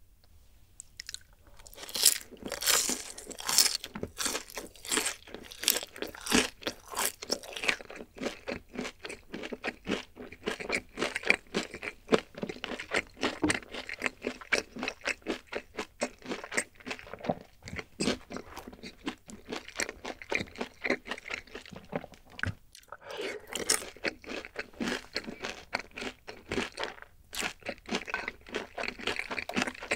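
Close-miked crunching and chewing of boneless sauced yangnyeom fried chicken: after about a second of quiet, a long run of crisp, crackly bites and chews, with a brief pause about three-quarters of the way through.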